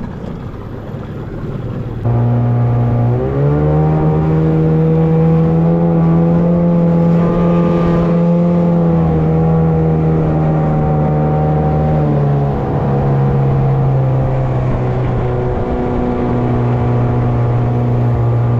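Outboard motor on a small aluminium boat running under way. It picks up speed with a rise in pitch about three seconds in, holds steady, then eases back to a lower, steady speed about twelve seconds in.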